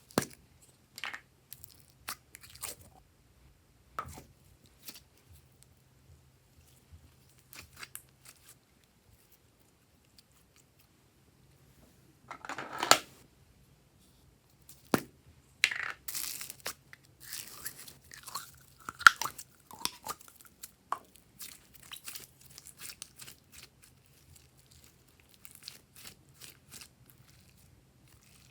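Slime being handled by hand: scattered sticky clicks and crackles, with two longer crackling, rustling stretches about halfway through.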